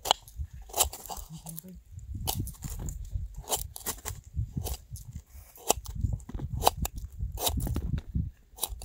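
Irregular crisp crunches and cracks, several a second and uneven in spacing, over a low uneven rumble.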